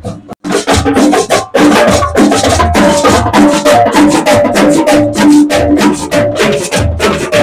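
Street drumline playing a fast, loud marching cadence on snare drums, quad tenor drums and bass drums, with a metal güira scraper keeping the rhythm. It starts about half a second in, after a cut.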